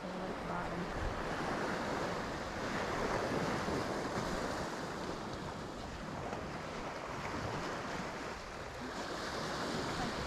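Sea waves washing onto the beach in a steady wash of surf that swells and eases, with wind blowing on the microphone.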